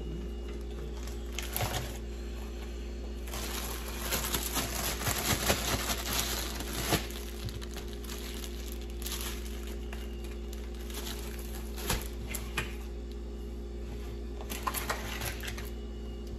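Plastic food packaging crinkling as it is handled, densest about three to seven seconds in, with a few sharp clicks and taps later, over a steady low hum.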